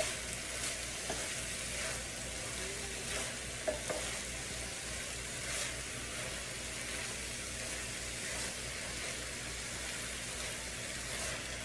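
Chicken fried rice sizzling in an electric skillet, a steady hiss, with a wooden spatula scraping and tapping against the pan now and then as the rice is stirred in.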